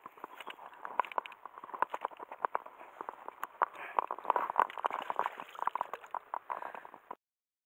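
Water splashing and sloshing in many quick, irregular wet clicks, cutting off abruptly near the end.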